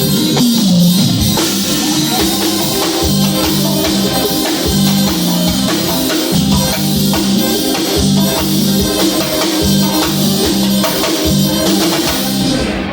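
A live band playing during a stage soundcheck: drum kit, percussion and bass keep a steady beat with a repeating bass line. The music stops abruptly just before the end.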